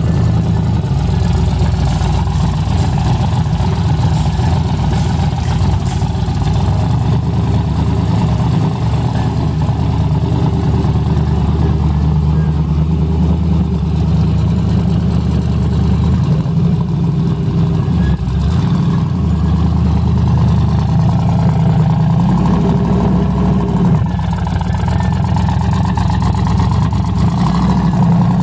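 Twin-turbocharged big-block V8 in a Chevy Silverado pickup idling, a loud, steady low running sound whose pitch shifts slightly now and then.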